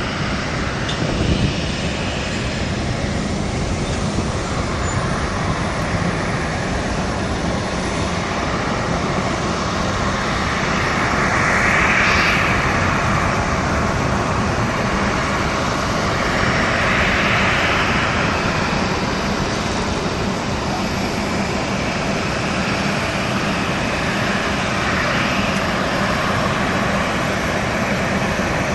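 Jet airliner's engines heard as a dense, steady rush of noise, swelling twice, about midway and again some seconds later, as the aircraft passes.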